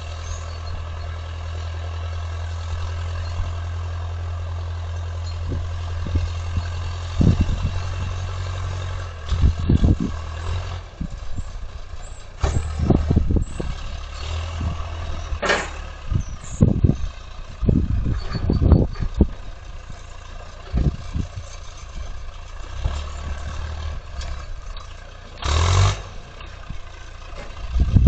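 Heavy equipment engine running steadily, then a run of knocks and clanks from about nine seconds in, with a short burst of noise near the end.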